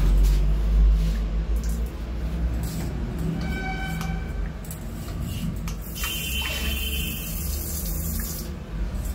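Hand-held health faucet (bidet sprayer) jetting water into a toilet bowl: a hiss starting about six seconds in and cutting off after about two and a half seconds, over a low steady hum.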